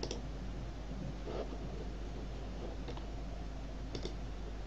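Computer mouse clicking four times, short sharp clicks a second or so apart, over a steady low electrical hum and hiss.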